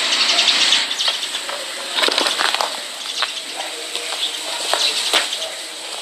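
Outdoor ambience: a steady rustling hiss with short bird chirps scattered through it.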